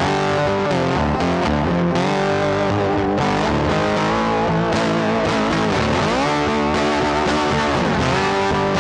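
Background rock music led by electric guitar, with notes bending down and back up twice near the end.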